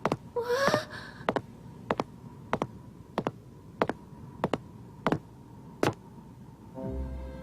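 Steady, even ticking, a little under two ticks a second, over a faint high hum. A brief rising voice-like sound comes about half a second in, and low music swells in near the end.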